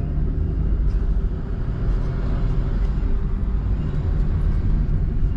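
1997 Pontiac Firebird driving at a steady pace: a steady low engine hum with road noise.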